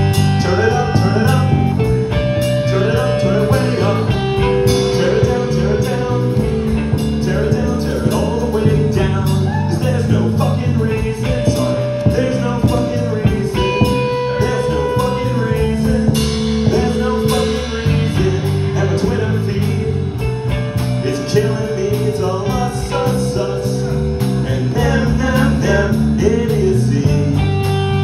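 Rock band playing live and loud: electric guitars, bass guitar and a drum kit, with held guitar notes over a steady drum beat.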